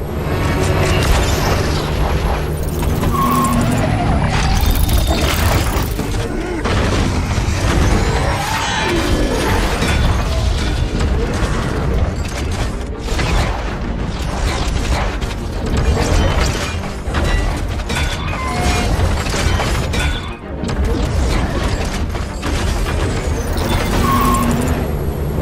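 Background music layered with mechanical transformation sound effects: metal parts clanking and ratcheting, with repeated sharp impacts, as a truck turns into a robot and back.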